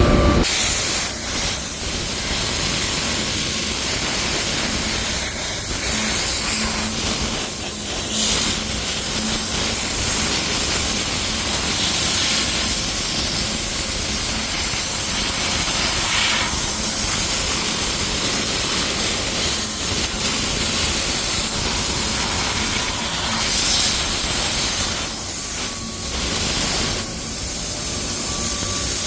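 Compressed-air paint spray gun hissing steadily, with brief dips every few seconds between passes.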